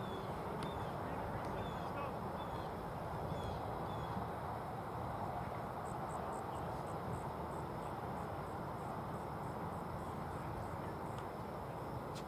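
Steady outdoor background noise with a low rumble, no voices or game sounds standing out. A few short chirps sound in the first few seconds, and from about halfway through a faint high chirp repeats about three times a second for several seconds.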